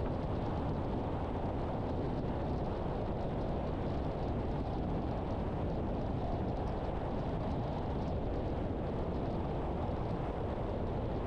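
Steady road noise of a car driving: tyre rumble and engine hum, even throughout.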